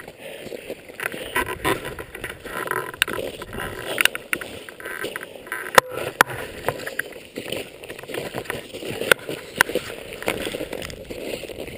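Footsteps crunching in snow as a hiker climbs with trekking poles, with clothing and pack rustling against the camera and sharp clicks now and then.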